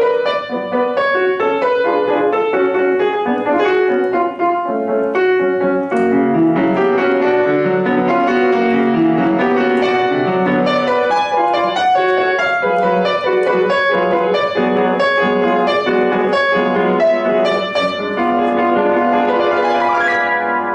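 Solo acoustic piano playing a classical piece, with a quick, dense run of notes over a lower accompaniment.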